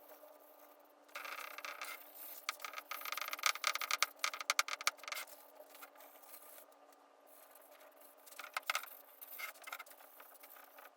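Hard wax oil being rubbed by hand into quarter sawn white oak, a run of quick scratchy rubbing strokes from about one to five seconds in, then a shorter flurry just past eight seconds.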